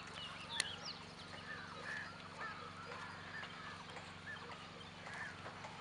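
Farmyard birds giving many short, repeated chirps and clucks over a steady low hum, with a few sharp clicks.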